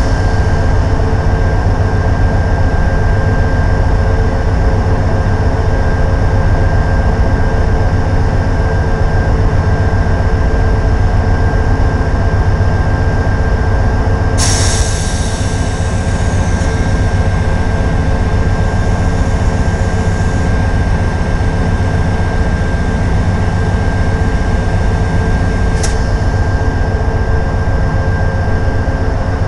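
GE P42DC Genesis locomotive's V16 diesel running while the locomotive stands still: a steady, loud low rumble with a constant whine over it. About halfway through, a sudden burst of air hiss fades away over several seconds, and a brief sharp hiss comes near the end.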